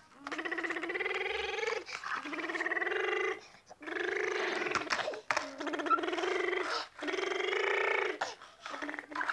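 A toddler making engine sound effects with her voice: about six long, buzzy 'brrrm' growls in a row, each held at a steady pitch for a second or so with short breaths between.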